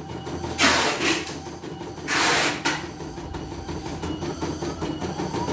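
CNY E900 computerized embroidery machine stitching: a steady, fast mechanical clatter of the needle and hoop drive. It is broken by two short bursts of hiss, one just under a second in and one about two seconds in.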